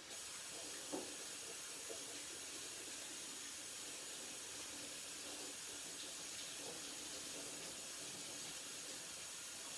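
Kitchen sink tap running steadily while dough is washed off the hands, with a light knock about a second in.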